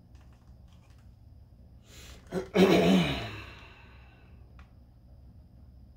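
A person draws a breath and lets out a loud, voiced sigh about two and a half seconds in, fading away over about a second. A faint steady low hum sits underneath.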